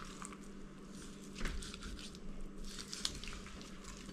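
Raw bone-in chicken breast being skinned and cut from the bone with a knife: irregular soft handling and cutting sounds, with sharper clicks about one and a half and three seconds in.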